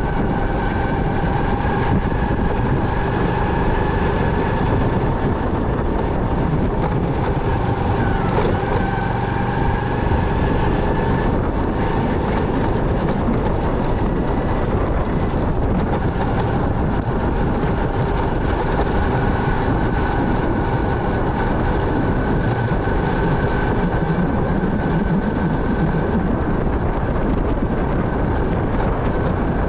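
Motorcycle on the move: steady engine and road noise with a steady high whine.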